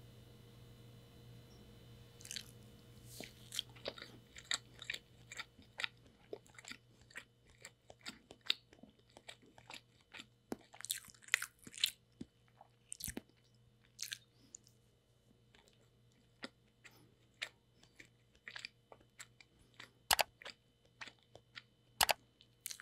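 Close-miked hands tearing soft chiffon cake apart: irregular crackling rips of the airy crumb, beginning about two seconds in, with two sharper snaps near the end.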